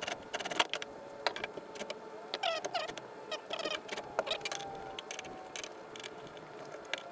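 Small clicks and taps of screws and a fish-finder mount base being handled and screwed down by hand, with a couple of short squeaks about two and a half and three and a half seconds in.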